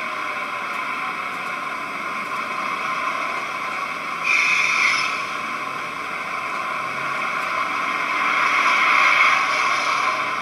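Sound-fitted OO gauge model diesel locomotives idling, a steady engine hum from small onboard speakers with little bass. There is a brief louder hiss about four seconds in, and the sound swells near the end.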